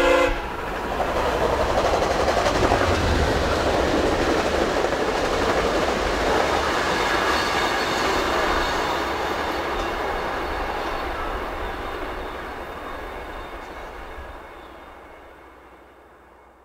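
VIA Rail passenger train, led by a GE P42DC diesel locomotive, passing: rumble and wheel-on-rail clatter that builds over the first couple of seconds, holds, then fades away over the last few seconds. A horn blast cuts off right at the start.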